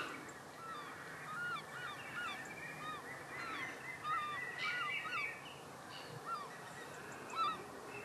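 A flock of birds calling: many short calls, each rising and falling in pitch, overlapping several to the second.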